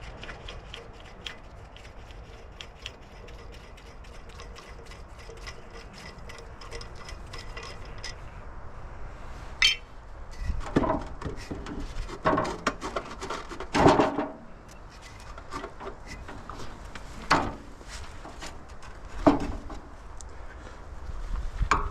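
Tools and metal parts being handled while an air compressor is taken apart. First comes a run of fast, light clicking, then several sharp metal clanks and knocks.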